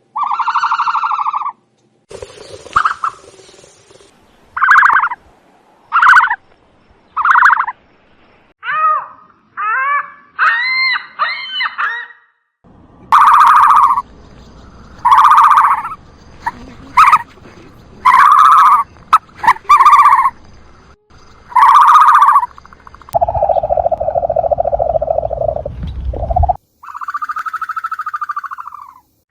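A series of separate bird calls, each lasting about half a second to a second, pitched and honk-like with clear overtones. A quick run of higher chirping calls comes about ten seconds in, and a longer, lower, rasping call comes near the end.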